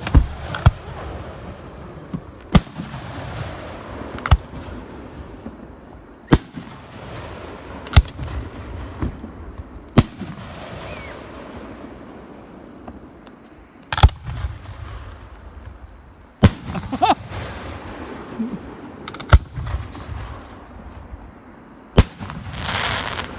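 Aerial fireworks shells bursting close by: a dozen or so sharp bangs, one to four seconds apart, some in quick pairs. Under them runs the steady high chirring of insects.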